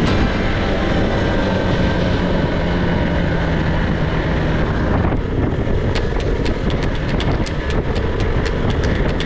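Motorcycle engine running on the move, with wind on the microphone. About five seconds in the sound changes abruptly, and after that a fast ticking, about four a second, runs over it.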